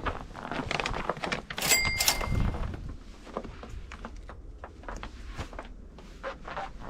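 A run of knocks and thunks, with a short ringing metallic ding about two seconds in.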